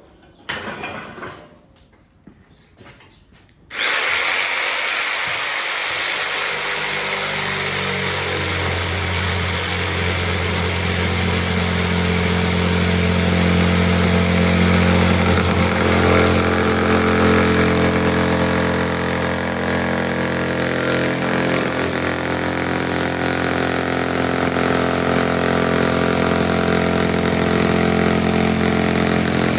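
A power saw with a heavy blade starts abruptly about four seconds in and runs steadily through a cut, its steady hum settling in a few seconds later. A brief knock comes just before it.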